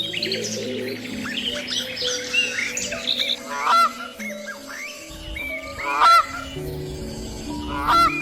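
Domestic waterfowl calling: many short high chirps, then three loud honking calls spaced about two seconds apart.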